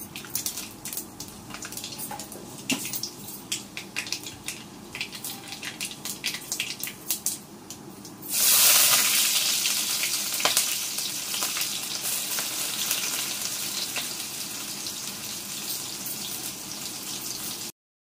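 Whole spices crackling and popping in hot mustard oil. About eight seconds in, a sudden loud sizzle as chopped onion goes into the pan, slowly easing off before it cuts off near the end.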